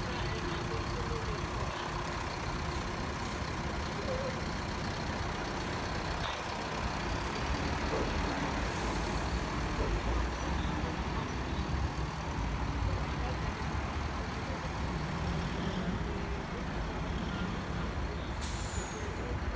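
Tow trucks' engines running in the street, with a steady low rumble. There are two short hisses, one about nine seconds in and one near the end.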